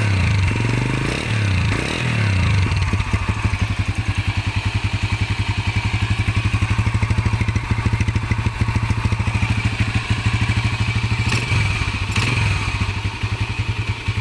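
Blaze 150 motorcycle engine running at a steady pulsing idle, revved up and down a few times in the first couple of seconds and once more near the end.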